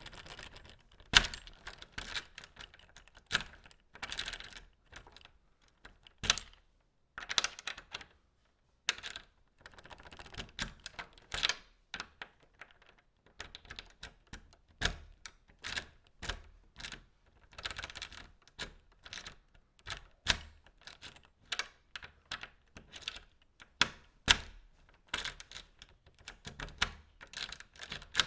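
A key being put into a door lock and worked: a long run of sharp metallic clicks, scrapes and short rattles from the key and lock mechanism, with a brief pause partway through.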